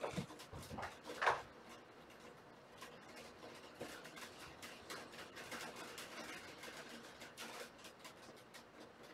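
Kittens jumping and landing on a carpeted cat tree and ottoman: a few soft thumps in the first second and a half, the loudest just over a second in, then light scattered scratching and scuffling of claws.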